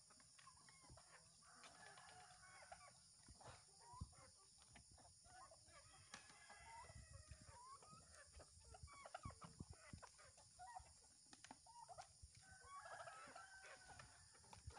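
A flock of free-range chickens clucking and calling as they crowd round fresh feed, with a sharp knock about four seconds in.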